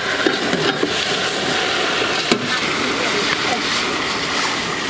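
Water pouring steadily from a metal jug into a large steel tray of raw mung beans, splashing continuously. A sharp knock comes about halfway through.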